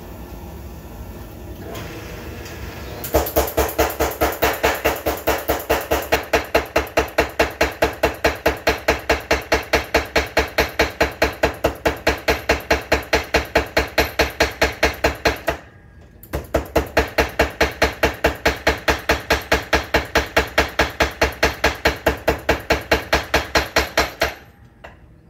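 Homemade belt-driven power hammer forging a red-hot bar of 1/2-inch 4140 steel. Its motor runs for about three seconds, then the ram strikes in a fast, even rhythm of three to four blows a second. The blows break off briefly about two-thirds of the way through, resume, and stop near the end.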